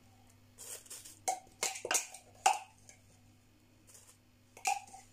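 A spoon knocking and scraping against a clear plastic chopper bowl while chopped dill is spooned out into a plastic bag, with the bag rustling. There is a quick run of sharp clicks in the first half and a couple more near the end.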